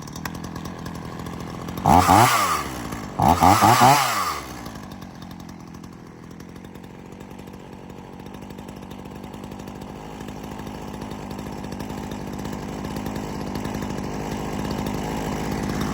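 Ryobi RY3716 two-stroke chainsaw idling, revved up briefly twice about two and four seconds in, the pitch rising and falling each time, then settling back to a steady idle.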